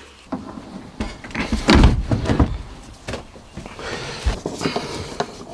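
A series of knocks and thuds from gear being handled and pressed into place in the van's interior, the heaviest cluster about two seconds in.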